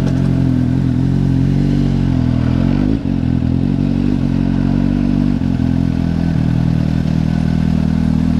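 2015 Suzuki GSX-S750's inline-four engine running at low revs as the motorcycle rolls away at walking pace. The pitch shifts briefly about three seconds in, then the engine settles to a steady low run near the end.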